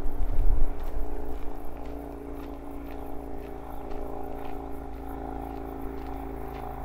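Steady drone with several held tones, like a distant engine running. A heavy low rumble of wind or mic handling comes in the first second and a half.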